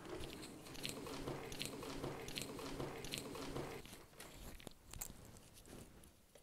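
Faint footsteps on a carpeted hallway, a little more than one crisp step a second, mixed with phone-handling rustle. About four seconds in the steps stop, and only a few faint clicks follow.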